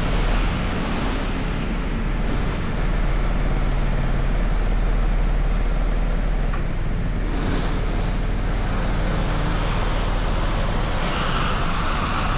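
Car driving through city traffic: a steady low engine and road rumble, with a short swell of hiss about seven seconds in.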